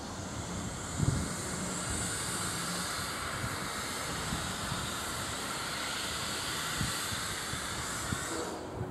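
Steam hissing steadily from an LMS Stanier Class 5 4-6-0 steam locomotive standing at the platform, cutting off suddenly near the end.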